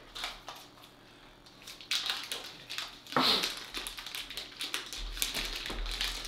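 Paper wrapper on sticks of butter crinkling and rustling as it is peeled off by hand, in short irregular crackles with a few small clicks.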